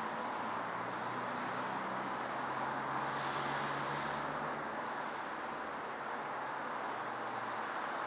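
Steady distant city traffic noise, an even roar of road vehicles, with a low engine hum from a nearer vehicle strongest in the first half. A few faint, brief high bird chirps come through about two seconds in and again past the middle.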